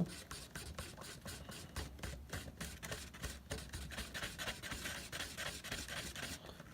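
Two-part JB Weld epoxy being mixed with a stick or applicator: rapid, repeated scratchy scraping strokes.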